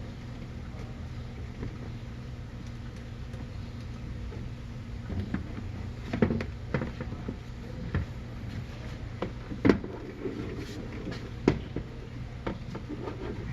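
Scattered clicks and knocks of plastic tailgate trim and tools being handled, the sharpest about six, nine and a half and eleven and a half seconds in, over a steady low hum.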